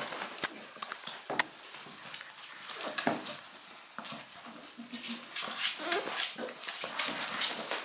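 Six-week-old shar-pei puppies whimpering and yipping in short, scattered calls as they play, mixed with short clicks and scrapes.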